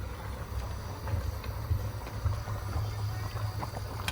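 Pot of white soup boiling on a gas stove: a steady low rumble with faint scattered bubbling ticks.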